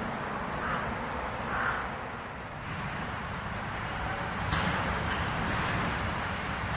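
Outdoor ambience of a steady rumble of distant traffic, with a bird calling twice in the first couple of seconds.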